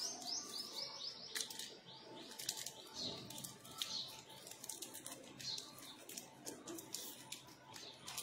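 Small birds chirping in quick runs of short, falling calls, mixed with the sharp crinkling and clicking of a chocolate's wrapper being unwrapped by hand.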